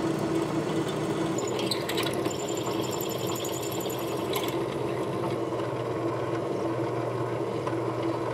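Electric spindle motor of a drilling machine running with a steady hum while a twist drill is fed into a metal workpiece, drilling a hole for a roll pin. A thin high squeal from the cutting comes in about a second and a half in and fades out after about three seconds.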